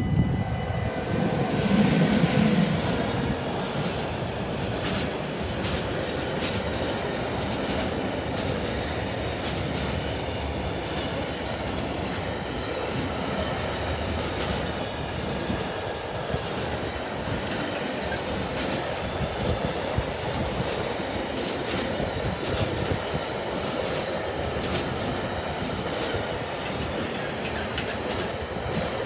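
SBB Cargo International electric freight locomotive passing close by, loudest about two seconds in, followed by a long train of container and tank-container flat wagons rolling past with a steady wheel rumble and repeated clickety-clack of wheels over the track.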